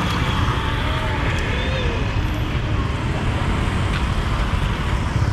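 Busy street-market ambience: a steady rumble of motor traffic with faint voices of people nearby.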